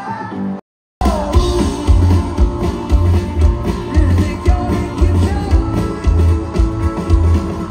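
Loud live concert music: a heavy bass beat about twice a second under a wavering melody line. The sound cuts out completely for about half a second just under a second in, then the music resumes.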